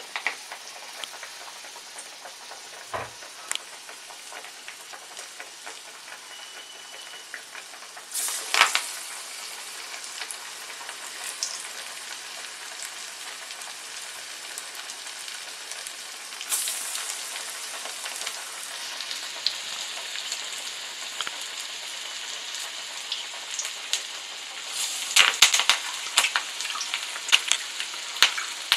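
Split-pea masala vadas deep-frying in hot oil in a kadai: a steady sizzle that flares up about eight seconds in and again about sixteen seconds in as more vadas go into the oil. Near the end comes a run of sharp crackles and pops.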